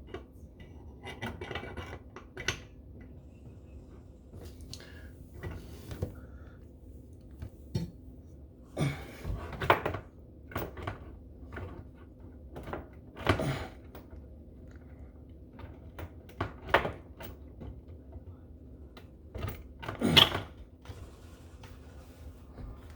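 Irregular clinks, knocks and rattles of hard objects being handled, with louder clusters of clatter now and then over a faint steady hum.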